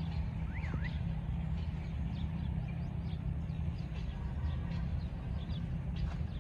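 Steady low rumble of a distant diesel locomotive approaching, with small birds chirping and whistling over it.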